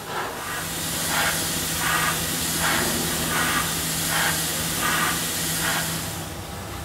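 Compressed air hissing from a pneumatic nozzle on a brake-shoe production machine, swelling in regular pulses about every three-quarters of a second over a steady low machine hum. It stops shortly before the end.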